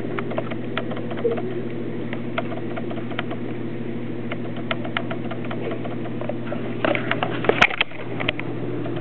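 A toddler and a play ball bumping and rubbing on a hardwood floor: scattered light clicks, then a short flurry of knocks about seven and a half seconds in, over a steady low hum.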